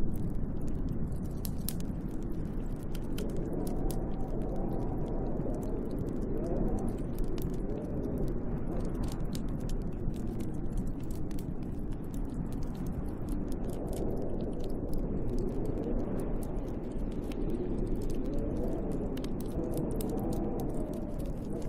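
Wood fire crackling with frequent small sharp pops, over a steady storm wind whose howl swells and fades and wavers in pitch.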